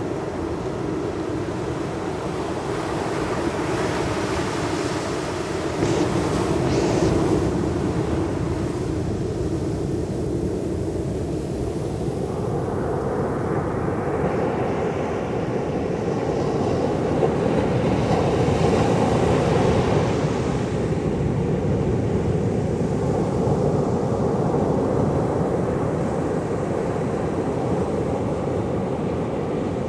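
Sea surf washing ashore in slow swells, with a continuous low rumble of wind on the microphone.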